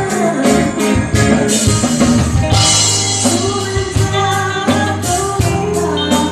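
Live band playing a song, a singer over drums, bass and guitar.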